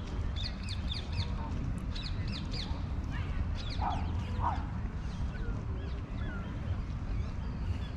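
Small birds chirping in quick runs of high, short notes, with two short, lower calls from waterfowl about halfway through, over a steady low rumble.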